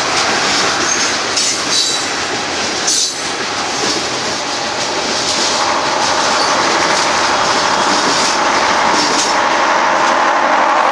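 Union Pacific coal train's hopper cars rolling past, wheels clacking with some high wheel squeal, then a diesel locomotive on the rear of the train passing about halfway through, its steady engine drone staying loud to the end.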